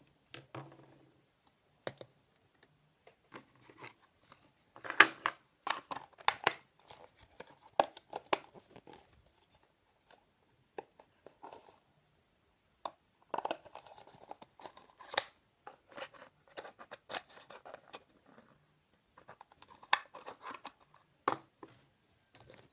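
Handling noises of toys and packaging: irregular clusters of short scrapes, clicks and rustles, with quiet gaps between.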